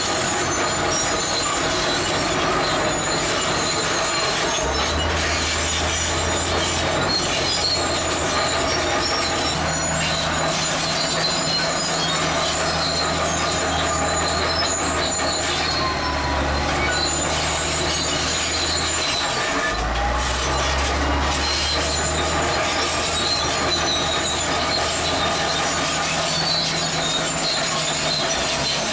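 Zoomlion crawler bulldozer working: a high-pitched squeal from its steel tracks over a low diesel engine note, which grows louder twice as the blade takes load pushing gravel.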